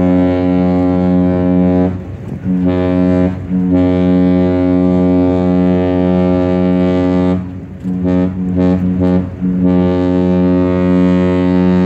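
A large cruise liner's deep ship's horn answering in a series of steady, unwavering blasts: a long blast, a short one about two and a half seconds in, another long one, a quick run of three short toots about eight seconds in, then a final long blast.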